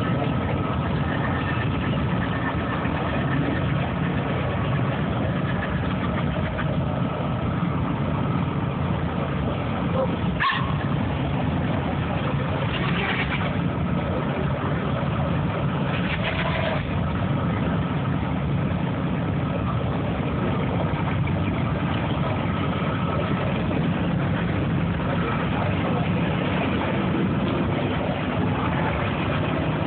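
Classic cars and a hot rod driving slowly past one after another, their engines running at low revs, as a steady mix of engine and street noise. A single sharp click about ten seconds in.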